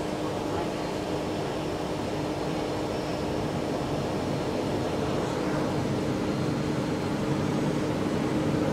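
Electric commuter train heard from inside the carriage as it pulls out of the station: a steady running rumble with a constant hum, growing gradually louder as it gathers speed.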